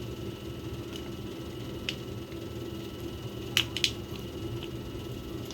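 Raw whole chicken being handled in its marinade, with sharp clicks and taps: one about two seconds in, and three in quick succession a little past the middle. A steady low hum runs underneath.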